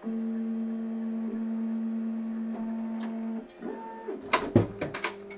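Bambu Lab X1 Carbon 3D printer humming at a steady pitch from its motors during calibration. A few sharp knocks come about four and a half seconds in as the printer's front door is shut, and after them the hum goes on quieter.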